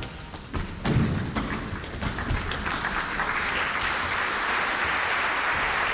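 Opera house audience applauding. It starts with scattered claps and a low thud about a second in, then swells into full, steady applause.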